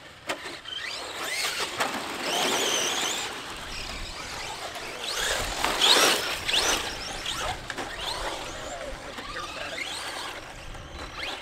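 Electric RC cars with brushless motors running on 3S LiPo batteries, their motors whining up and down in pitch as they accelerate and back off over dirt bumps. The tyres add a gritty rush on the loose dirt, loudest about six seconds in.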